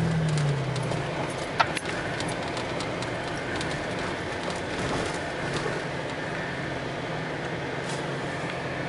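A vehicle's engine running at low speed on a dirt trail, heard from inside the cab: a steady low hum over road noise, with a few clicks and rattles and one sharp knock about a second and a half in.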